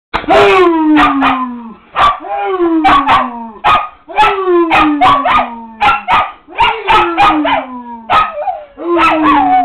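A man and his dog howling together: about five long howls that slide down in pitch, with the dog's short barks and yips breaking in between and over them.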